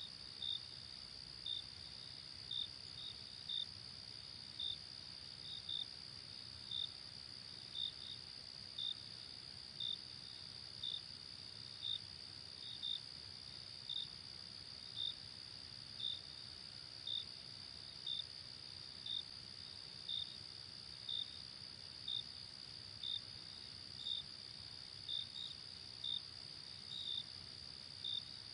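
Crickets chirping at night: a steady high trill runs underneath while one louder cricket chirps about once a second, now and then doubled.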